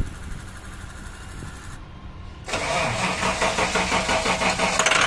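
International V8 gasoline bus engine being cranked by the starter, catching about two and a half seconds in and running loud and rough. It is hard to start, firing only briefly before it dies.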